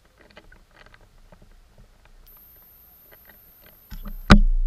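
Underwater recording: faint scattered clicks and ticks, then near the end a sudden loud thud as a pike strikes the sardine bait right beside the camera, followed by a deep low rumble dying away.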